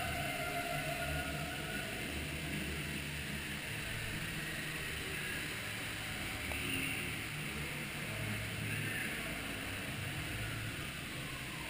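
Ride noise aboard a water-ride boat: a steady low rumble under a rushing hiss, with a faint falling tone near the end.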